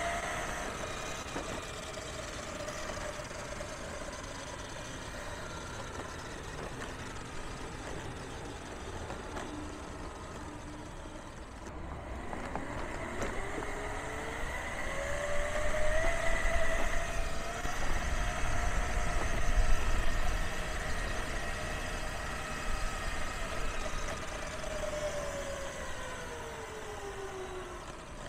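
Steel helical reduction gears (7:1) of a custom electric mountainboard whining as it rides, the pitch climbing a little before halfway as the board speeds up, holding, then falling near the end as it slows. A low rumble underneath is loudest in the middle.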